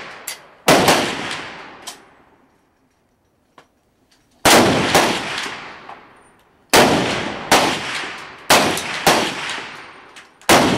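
Rifle shots from several shooters firing in turn, about eight loud cracks, each trailing off in a long echo. There is a quiet gap of about two seconds after the first shot, and then the shots come every half second to second and a half.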